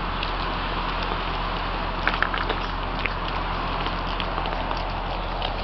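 Cats eating close by: a few faint clicks of chewing, about two seconds in and again near the end, over a steady hiss.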